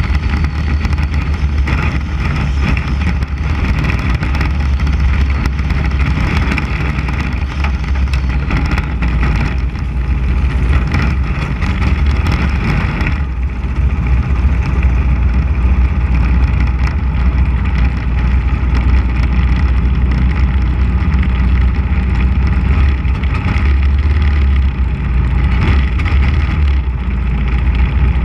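The 600 cc motorcycle-derived engine of a Mini Cup race car, heard from on board, running steadily at low revs as the car rolls slowly.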